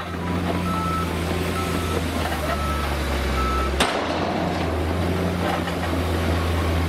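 Diesel engine of a MAZ dump truck running steadily as the tipper body is raised. A warning beeper beeps four times, about once a second, then stops, and a single sharp click comes just before four seconds in.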